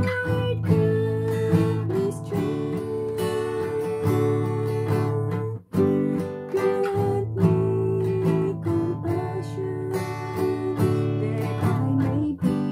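A woman singing with a strummed acoustic guitar, holding long notes over the chords, with a brief break a little before the middle.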